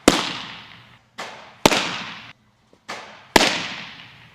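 A baseball smacking into the pocket of a freshly broken-in Wilson A2K catcher's mitt: three loud, sharp pops about a second and a half apart, each ringing out with an echo. A fainter pop comes shortly before each one.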